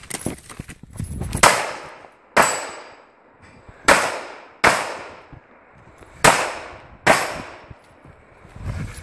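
Six pistol shots fired in three pairs about a second and a half apart, each shot followed by a short echo dying away. A few faint footsteps come in the first second.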